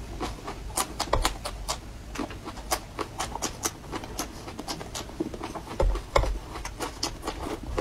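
Close-miked crunching and chewing of raw red chilli peppers: a run of sharp, crisp crunches, several a second, with a couple of dull low thumps about six seconds in.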